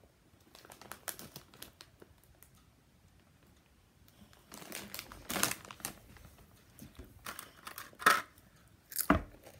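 Doritos chip bag crinkling as it is handled, in irregular bursts of crackles with short quiet gaps between them.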